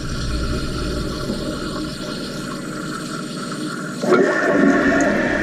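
Toilet tank fill valve running, water hissing into the tank to replace water leaking past a worn flush valve seal. About four seconds in the flow gets louder, with a steady high hiss.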